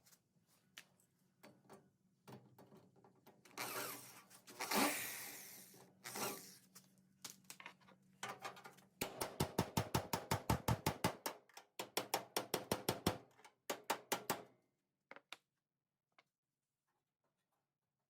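Hammer blows on the sheet-metal inner rocker of an early Ford Bronco, knocking the cut panel loose. A few scattered knocks and a brief scrape of metal come first. About halfway in comes a fast run of sharp blows, about six a second, in two bursts that stop a few seconds before the end.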